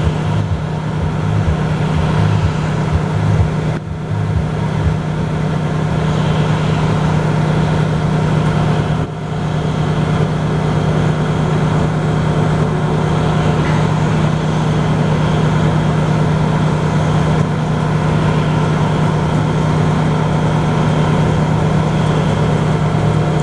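Heavy diesel engine running steadily at constant speed, a loud low hum.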